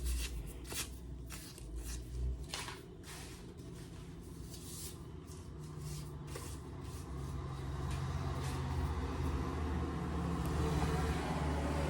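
Quince leaves rustling and snapping as they are picked by hand, a quick run of crisp rustles in the first half. A low steady rumble grows louder toward the end.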